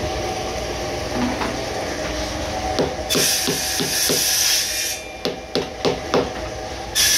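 Claw hammer knocking on a wooden panel and the knob's square backing plate, about ten quick knocks in a row starting a few seconds in. A loud hiss comes in with the first knocks and again near the end.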